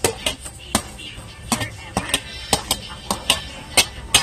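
Metal spatula knocking against a plate and the wok as diced ham is pushed off the plate into the pan: about a dozen sharp clicks and taps at an irregular pace.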